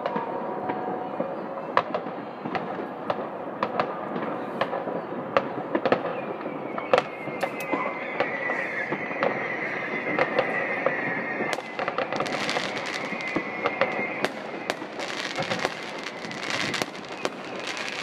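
Many fireworks and firecrackers going off at once: a constant crackle dotted with sharp pops and bangs. A high whistling note runs through the middle.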